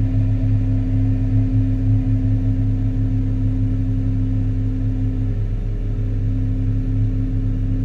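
Hyundai 380 long-reach excavator's diesel engine running steadily: a low, even drone with a steady hum above it.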